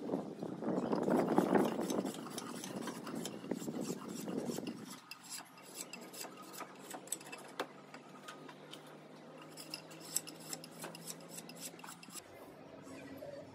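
Hand tool scraping along a teak walking-stick blank. Two long, loud strokes come in the first five seconds, followed by lighter scraping and small clicks. A faint steady low hum runs through the middle.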